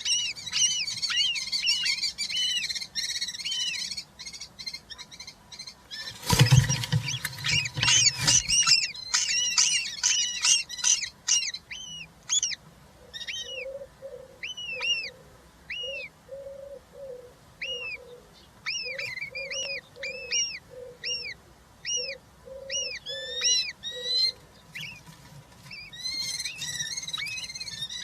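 European roller chicks calling in the nest box, quick short chirps repeated several times a second, with a loud scuffling and thudding commotion about six seconds in that lasts two seconds or so, and a lower pulsing call in the middle of the stretch.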